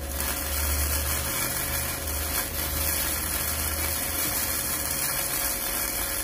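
Wellz gasless flux-cored MIG welder's arc burning on steel with 0.9 mm flux-core wire: a steady, unbroken crackle and hiss over a low hum, the hum strongest in the first few seconds.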